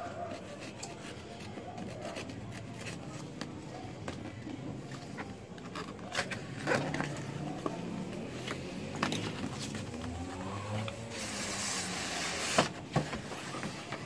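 Cardboard keyboard packaging being handled: scattered rubs and taps on the box, then a longer scrape as the printed sleeve slides off the black inner box, ending in a sharp knock about twelve and a half seconds in.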